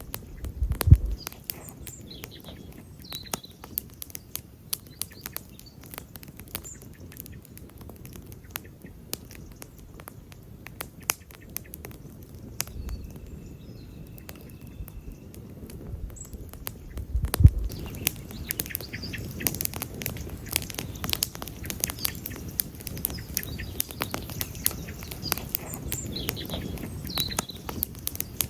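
Wood campfire crackling, with irregular sharp snaps over a low rumble of burning. A louder pop comes about a second in and another around 17 seconds, and the crackling grows denser in the second half.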